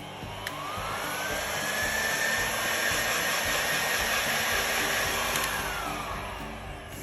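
Makita HG5030K heat gun running: its fan motor spins up with a rising whine and a rush of air over about two seconds, runs steadily, then winds down with a falling whine over the last second and a half.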